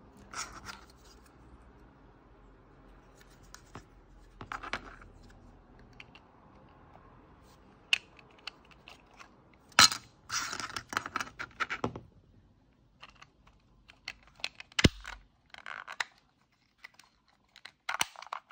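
Small plastic parts being handled: irregular clicks, taps and brief rustles from a toy solar windmill's plastic motor gearbox box, with a couple of sharper clicks, as its black lid is fitted back on near the end.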